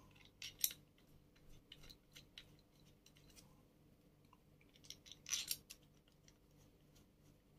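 Faint clicks of small screws being handled and set back into their holes in a 3D-printer hotend housing, to line up its parts. Two light clicks come just after the start and a short cluster comes about five seconds in.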